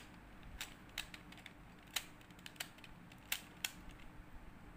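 Stickerless plastic Pyraminx pyramid puzzle being turned by hand: about seven sharp plastic clicks, irregularly spaced, as its layers are twisted through a solving algorithm.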